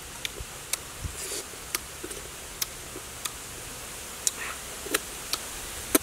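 Mouth sounds of someone chewing honeycomb: sharp, irregular wet clicks and smacks, about a dozen, over a steady background hiss.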